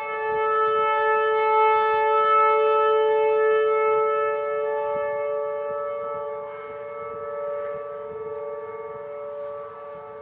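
Whelen Vortex electronic tornado warning siren sounding a steady tone during a test, several level pitches sounding together. The tone is loudest in the first half and drops somewhat after about six seconds.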